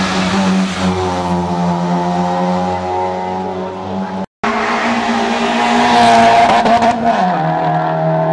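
Rally car engine held at high revs with a steady pitch. The sound cuts out briefly about four seconds in, then a second car is heard and its engine pitch drops near the end.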